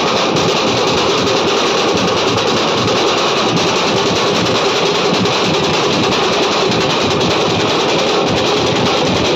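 A Nashik dhol band of many dhol drums beaten with sticks all together: a loud, steady, dense wall of drumming with no breaks.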